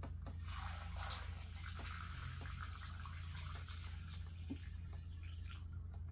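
Old gasoline pouring out of a Honda EU1000i generator's fuel tank into a plastic funnel and gas can: a steady splashing stream that dies away near the end as the tank empties.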